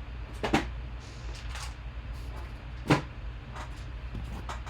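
Packaging being handled while a boxed mini helmet is opened: two sharp clicks or knocks, about half a second in and about three seconds in, with a few fainter taps, over a steady low hum.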